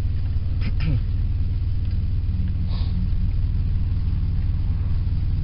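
Car engine idling, a steady low hum heard from inside the cabin. A short vocal sound comes about a second in, and a brief hiss near three seconds.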